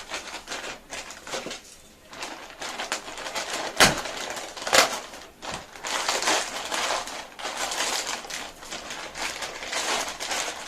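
Packaging being handled for an unboxing: an irregular run of crackling and rustling, with sharp knocks a little before and after the 4-second mark. This is typical of a sealed product box and its wrapping being turned over and opened.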